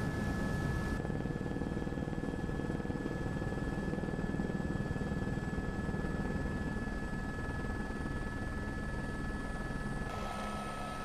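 Steady engine drone with a constant high whine over a low rumble. The sound changes abruptly about a second in and again near the end.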